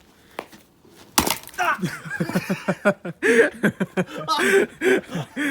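An axe strikes a log of firewood once with a sharp crack about a second in, followed by people laughing and talking.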